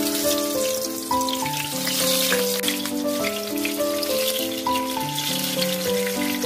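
Background music, a simple stepping melody of held notes, over a steady crackling hiss from the kitchen work.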